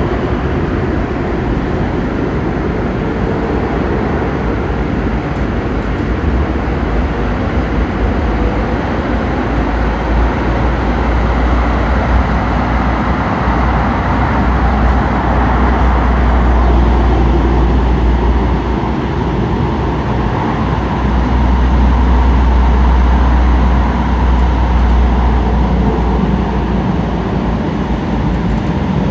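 Light-rail train heard from inside the car while running at speed, likely through a tunnel: a steady loud rumble and rush of wheels on rail. It swells for several seconds in the middle, with a faint motor whine at the start.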